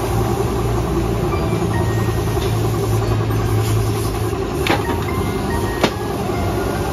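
Air compressor for spray painting running steadily, a continuous low motor drone, with two sharp knocks about a second apart late on.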